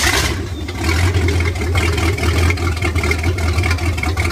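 Carbureted Ford 5.0 V8 MerCruiser 188 marine engine catching with a loud burst at the very start, then settling into a steady idle.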